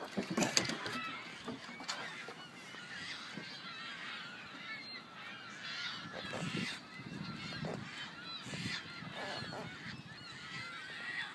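Many short honking bird calls, overlapping and going on throughout, with a few sharp knocks of handling about a second in.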